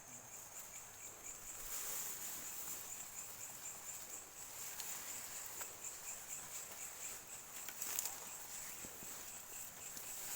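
Night-time cricket and insect chorus: a steady high-pitched trilling with a second, lower pulsing trill under it. A few faint rustles and knocks are heard, one of them about eight seconds in.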